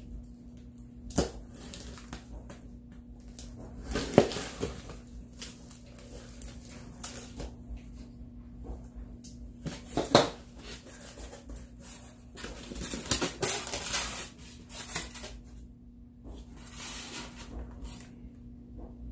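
A cardboard shipping box being unpacked by hand: a knife slitting packing tape, cardboard flaps opened, a styrofoam insert and a clear plastic tub handled, making irregular scrapes, rustles and knocks, the loudest about four and ten seconds in. A faint steady hum runs underneath.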